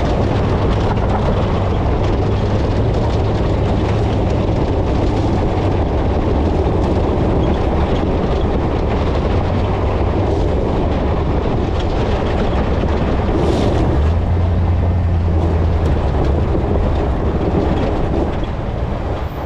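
A GMT800 pickup driving off-road through a wash: a steady engine drone under the rumble of tyres and suspension over rough ground, easing off slightly near the end.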